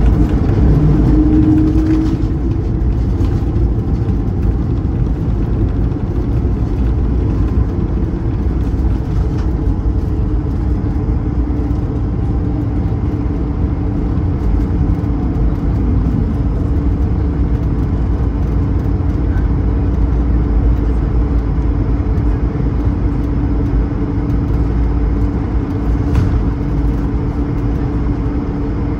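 Airbus A220-300 cabin noise heard from a window seat: a steady, loud rumble from its Pratt & Whitney PW1500G geared turbofans and airframe, with a steady hum running under it.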